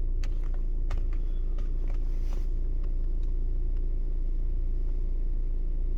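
Volkswagen Tiguan idling: a steady low hum, with a few faint clicks.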